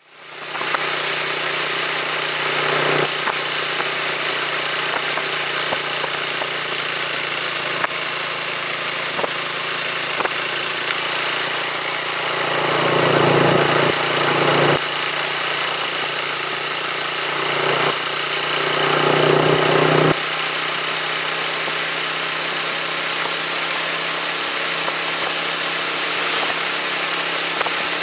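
Motorcycle engine running while riding, with steady engine sound and two louder swells as the throttle is opened, about twelve and eighteen seconds in, each cutting off suddenly.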